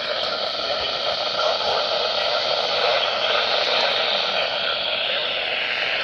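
Steady hiss of radio static from a receiver.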